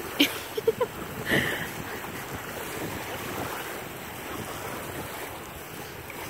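Wind buffeting the microphone over small waves washing on a sandy shore, with a few short sharp sounds in the first second and a half.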